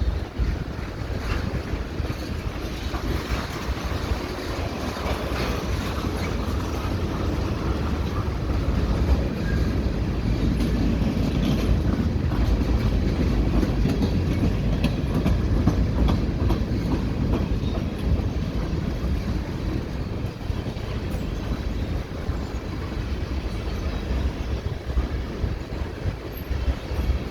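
Freight cars of a CN freight train rolling past: a steady rumble of steel wheels on the rails with repeated clicking as the wheels cross rail joints.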